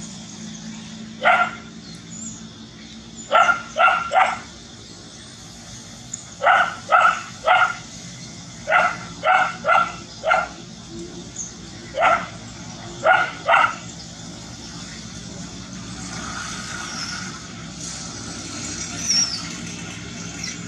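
A dog barking at a monkey in short bursts of two to four barks, about fourteen in all, stopping about two-thirds of the way through.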